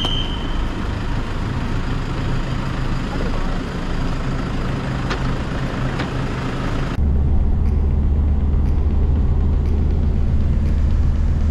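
Outdoor traffic and van engines idling at a kerb, with a couple of sharp clicks as a Toyota van's rear hatch is opened. About seven seconds in it cuts to the inside of the moving Toyota HiAce van: a steady, loud low engine and road drone.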